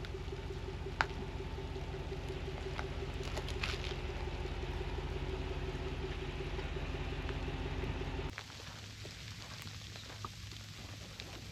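Steady low hum of a vehicle engine and road noise, as while driving. It cuts off abruptly about eight seconds in, giving way to quieter background noise with a few faint ticks.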